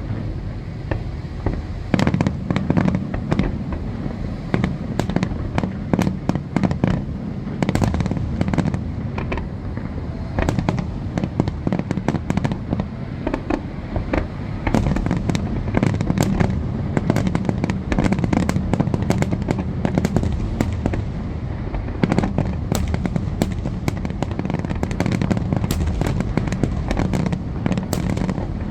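Aerial fireworks going off in a rapid, continuous barrage: many overlapping booms and sharp cracks, several each second, over a constant low rumble.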